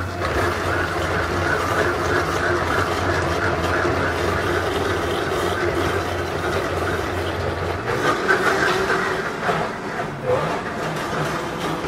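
High-powered countertop blender running as its tamper is worked down through a thick green purée. The steady motor drone stops about eight seconds in, leaving kitchen background noise with a few knocks.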